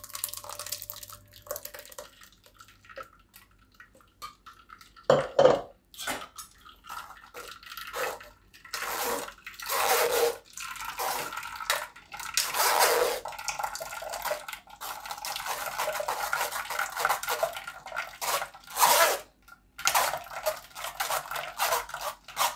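A steel spoon scrapes and stirs thick blended bael fruit pulp against a stainless steel mesh strainer in irregular strokes, and the strained juice trickles and drips into a steel bowl below. The strokes get louder from about five seconds in.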